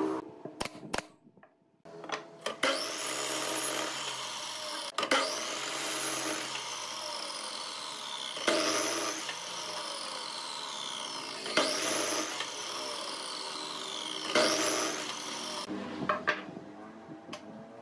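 Power miter saw cutting a wooden block, about five cuts roughly three seconds apart. Each cut starts sharply and ends in a falling whine as the blade coasts down. A few light wooden knocks near the end.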